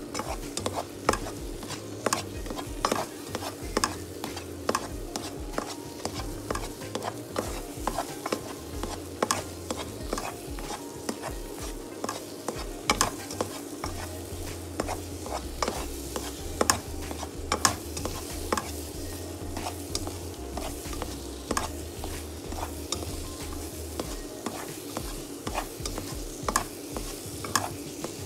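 Plastic spoon stirring and scraping thick semolina halwa around a non-stick pan, knocking against the pan every second or so, over a steady sizzle of the butter as the halwa fries.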